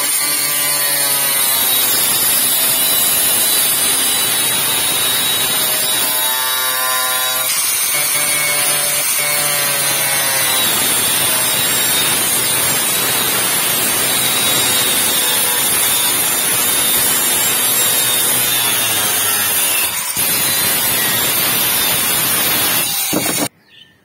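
Handheld angle grinder with a thin cutting disc running at full speed and slicing through the wall of a plastic water tank: a steady loud whine and hiss, with the motor's pitch dipping briefly twice as the disc bites. It cuts off suddenly near the end.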